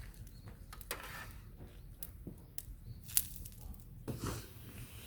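A few sharp clicks or knocks, four in about three seconds, over a steady low rumble, with a brief rustle near the end.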